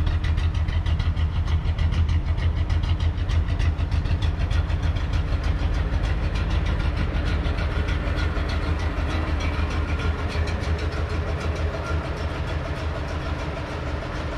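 1936 Ford pickup's 221 cubic-inch flathead V8 idling steadily, with an even pulsing exhaust beat; it grows a little quieter toward the end.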